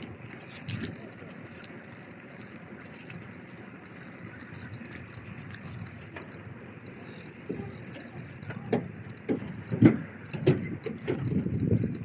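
Riding a bicycle: steady rolling and wind noise, joined in the last few seconds by a run of knocks and rattles, the loudest about ten seconds in.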